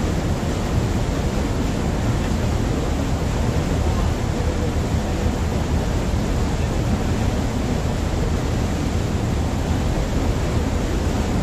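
Steady rush of churned wake water along the hull of a moving passenger ferry, with the low, even hum of the ship's engine underneath.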